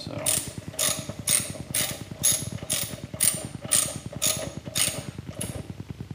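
Hand ratchet clicking in steady strokes, about two a second, as bolts on the engine's coupling are snugged down a little past hand tight; the clicking stops near the end.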